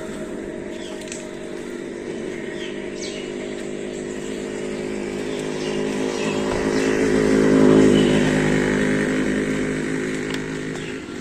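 A motor vehicle's engine running, growing louder to a peak about eight seconds in, then falling away, as the vehicle drives up close.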